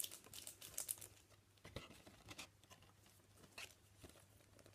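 Faint rustling and crinkling of a trading card pack wrapper and cards being handled: a quick run of crackles in the first second, then a few scattered ticks.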